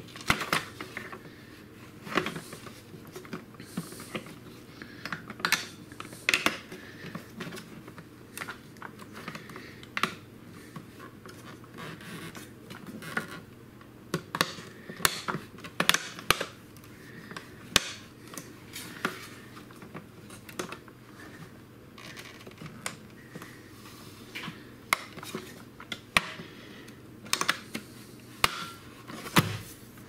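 Irregular plastic clicks and taps as the top cover of a Miele S6 canister vacuum is handled and pried into place.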